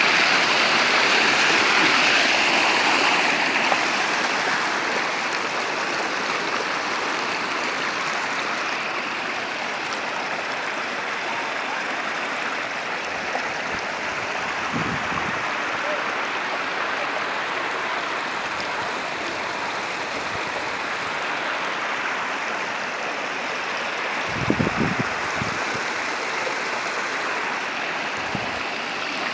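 Water flowing steadily, an even rushing like a stream or small cascade, with a few brief low thuds about halfway through and again near the end.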